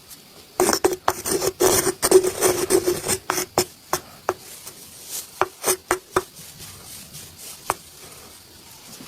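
Massage hands rubbing briskly: a dense rasping scrub broken by many sharp smacks, starting about half a second in and stopping at about six seconds, after which only a few scattered taps remain.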